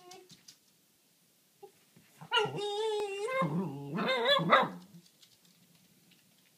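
A dog vocalising: a brief whine trails off at the start, then about two seconds in comes one long, wavering whine-howl lasting about two and a half seconds, the dog's 'talking'.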